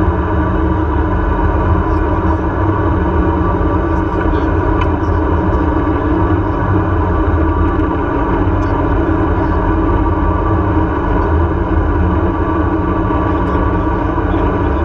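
Seated zipline ride in motion: the trolley running along its steel cable, a steady rushing noise with a faint steady whine in it.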